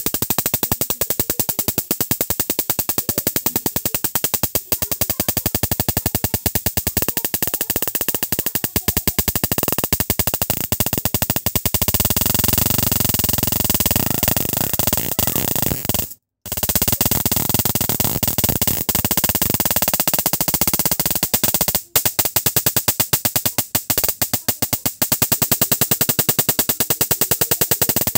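High-voltage electric arcing: a loud, rapid crackling buzz of sparks, many snaps a second, that cuts out briefly about 16 seconds in and resumes.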